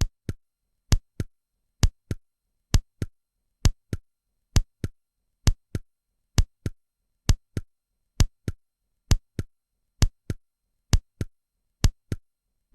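Simulated normal heart sounds at the cardiac apex: a steady lub-dub rhythm of paired beats, about 66 a minute, with the first heart sound louder than the second in each pair.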